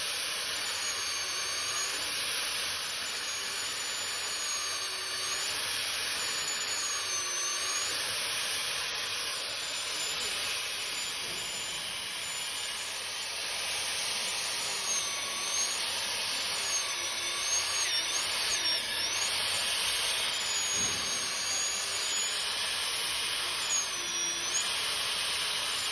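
FEIN KBC 36 MAGFORCE magnetic core drill running and drilling, a steady hiss with a high motor whine that wavers and dips in pitch every few seconds.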